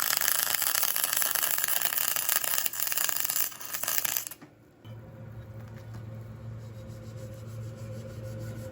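Arc welding as a socket is welded onto a seized shaft-coupling nut, the heat meant to free the nut: a steady dense crackle that stops about four seconds in, leaving a low steady hum.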